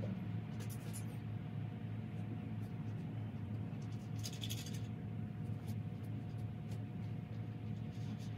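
A steady low hum with a faint steady whine above it, and a short scratchy rustle about four seconds in.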